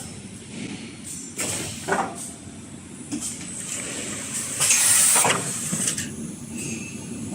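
Industrial paper towel roll rewinding machine running with uneven mechanical noise. Sharp hisses of air come twice, about a second and a half in and more strongly around five seconds in.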